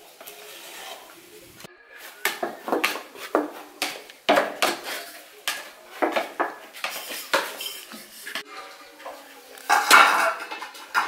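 Aluminium cooking pots and plates clattering and knocking, with a wooden stick scraping inside an aluminium pot as stiff posho is turned out and served. The knocks and scrapes come irregularly, and the loudest clatter is about ten seconds in.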